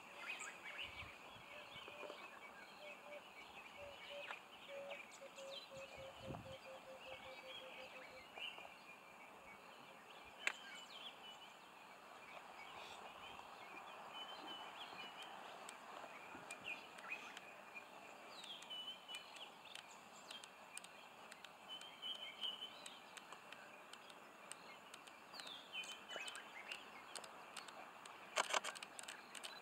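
Quiet bush ambience with birds chirping and calling off and on, and a steady faint tone for a few seconds early on. A few sharp clicks break through, the loudest a quick cluster near the end.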